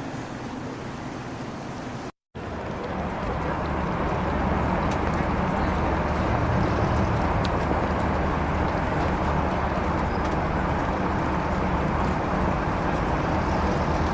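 City street ambience sound effect: a steady wash of traffic with a low engine rumble. It drops out to silence for a moment about two seconds in, then comes back louder.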